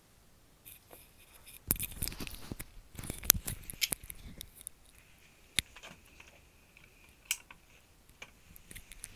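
Light handling noise: a burst of clicks and rustling about two seconds in, then a few single sharp clicks.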